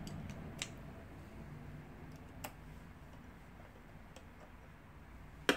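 A few light, scattered clicks from handling a sewing machine with a small metal tool at its handwheel, with one sharper click near the end, over a faint low hum.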